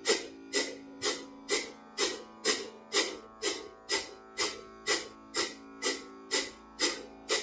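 Kapalabhati breathing: sharp, forceful exhalations through the nose, evenly paced at about two a second, each a short rush of air. Quieter background music with a sustained drone runs underneath.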